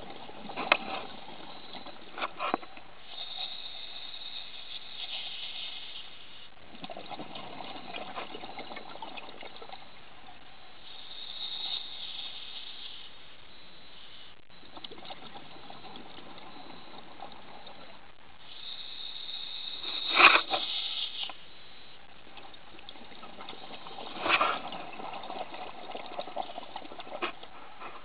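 Scuba diver breathing through a regulator underwater: a hiss on each inhale, then a gurgling rush of exhaled bubbles, in slow breaths about one every eight seconds. A few sharp clicks and knocks, the loudest about two-thirds of the way through.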